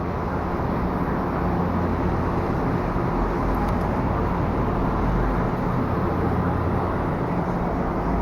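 Steady low rumbling background noise with no separate bangs or pops.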